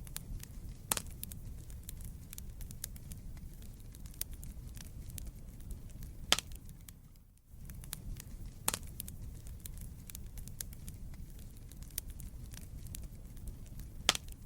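Wood fire crackling in a fireplace: a steady low rumble of flames with a scatter of small clicks and a few sharp pops. The sound drops out briefly about halfway through.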